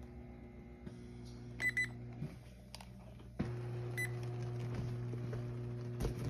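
Yitahome electric massage chair running its shoulder-detection body scan: a steady motor hum that steps up louder about three and a half seconds in. There are short electronic beeps, a quick burst of them a little under two seconds in and a single one at about four seconds, and a handling bump near the end.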